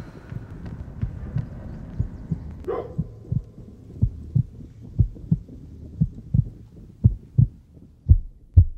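Heartbeat sound effect: deep double thumps about once a second, growing louder toward the end, over a faint low hum.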